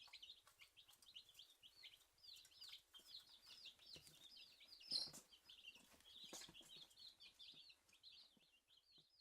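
Baby Dominique chicks peeping: a constant run of short, high, quick chirps from several birds. A few faint knocks come among them, the loudest about five seconds in.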